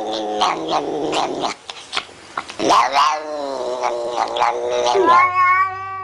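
A cat caterwauling in drawn-out, wavering yowls, with a swooping call around the middle and a long held yowl starting about five seconds in.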